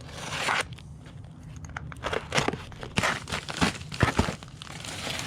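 Packaging crinkling and rustling with scattered sharp clicks and crackles as a package of LED motorcycle turn signals is opened.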